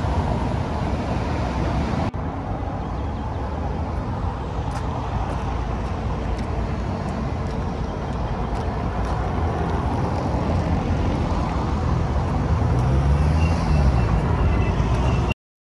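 City street traffic: cars and taxis passing on a wet cobbled boulevard, a steady roar of engines and tyres. Near the end one vehicle's engine note rises and falls as it passes, and the sound cuts off abruptly.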